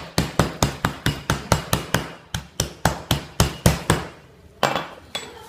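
Meat mallet pounding a chicken breast through cling wrap on a cutting board, flattening it to about a centimetre thick: a fast, even run of strikes, about five a second, with a short break a little over two seconds in, then a single last strike near the end.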